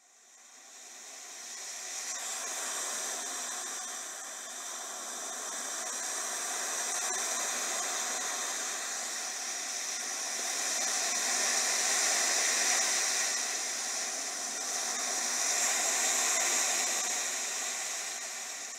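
A steady, hissing, rushing noise that fades in over the first two seconds, then swells and eases slowly, thin with no low rumble.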